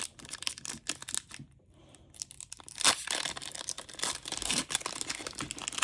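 Foil Pokémon booster pack wrapper being torn open and crinkled, with scattered sharp clicks. It eases off briefly about one and a half seconds in, then tears and crinkles steadily from about three seconds on.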